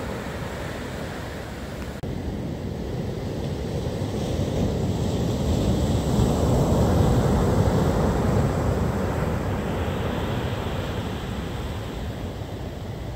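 Storm surf: heavy waves breaking and washing up the beach. The sound swells to a peak about halfway through and then eases off, with wind rumbling on the microphone.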